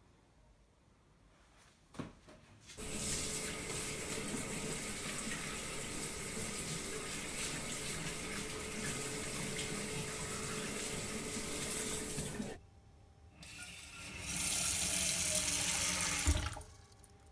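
Water tap running into a sink in a steady stream for about ten seconds after a click, shutting off, then running again for about two seconds, with a thump near the end.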